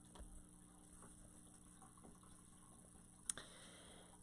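Near silence: room tone with a faint steady hum, a few soft ticks and one sharp click a little over three seconds in.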